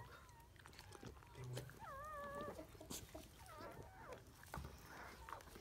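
Newborn golden retriever puppies squeaking and whimpering faintly: thin, high cries that bend up and down in pitch, the longest about two seconds in, with shorter squeaks later and scattered soft clicks.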